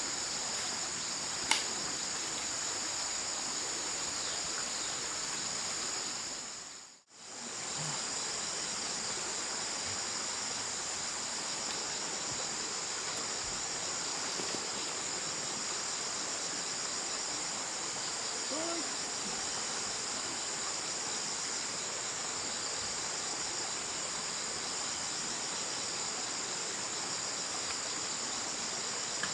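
Steady, high-pitched chorus of insects such as crickets over a soft outdoor hiss, with one sharp click about a second and a half in. The sound briefly fades out and back in about seven seconds in.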